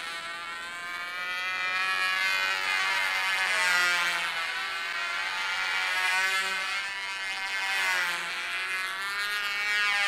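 Small propeller-driven remote-controlled model plane buzzing in flight, its motor whine wavering up and down in pitch as it manoeuvres and passes.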